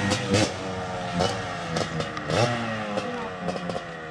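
Yamaha DT 125 two-stroke single-cylinder engine being blipped on the throttle: its pitch rises, then slides back down several times, with a few sharp ticks in between.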